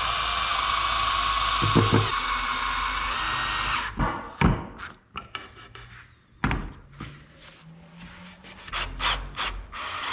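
Cordless drill running for about four seconds, driving a screw into a wooden camper frame, its motor pitch stepping up just before it stops. After it, a series of sharp wooden knocks and clatters from handling timber and the tool.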